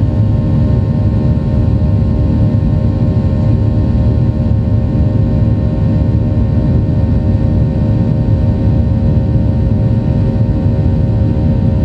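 Cabin noise of a jet airliner climbing after takeoff: a steady low rumble from the turbofan engines at climb thrust, with several unchanging hum tones on top.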